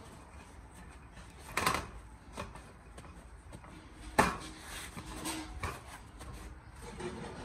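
Paper towel rubbing over a raw pork roast, with sharp knocks about a second and a half in and again about four seconds in, the second louder, as the roast is tipped and shifted on a plastic cutting board.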